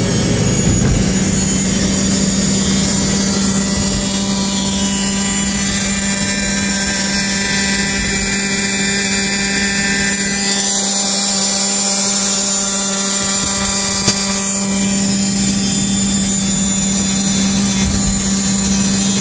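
Stock Blata pocket bike's small engine running at high revs at a steady pitch, holding about 40 mph, heard over car road and wind noise.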